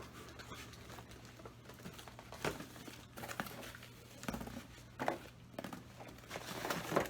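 Packaging crinkling and rustling as it is handled, in short spells a few times with light clicks in between, as when candy bar wrappers and the box of candy bars are moved about.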